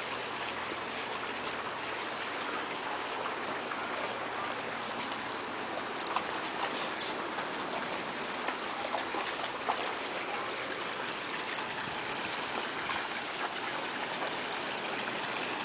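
Steady running and splashing water of a pool, with small sharp splashes now and then.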